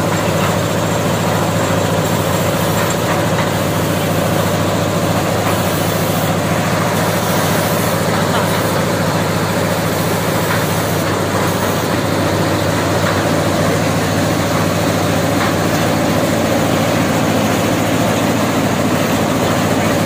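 Concrete mixer's small diesel engine running steadily at a constant speed, loud and unchanging throughout.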